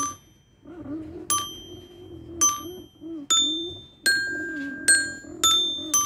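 Mechanical toy metallophone (coloured metal-bar children's xylophone) played by red ball-tipped mallets lifted by a pegged wooden barrel and levers: a slow tune of single ringing notes, about one every two-thirds of a second, after a short pause near the start.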